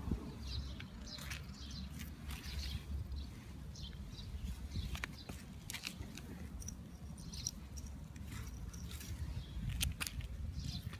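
Small birds chirping on and off, over a steady low rumble, with a few sharp ticks.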